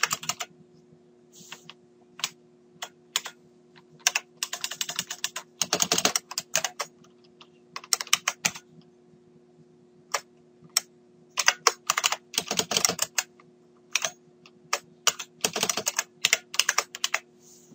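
Typing on a computer keyboard: irregular runs of keystrokes broken by short pauses, over a faint steady low hum.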